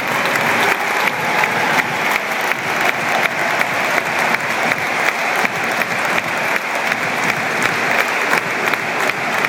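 Large football stadium crowd clapping and cheering, a dense, unbroken wash of many hands clapping.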